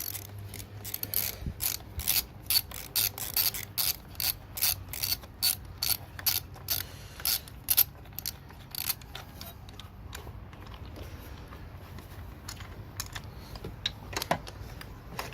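Hand socket ratchet clicking in quick runs of strokes, backing out bolts on a Hemi V8 engine; the clicking thins out and stops about nine seconds in, with one more click near the end.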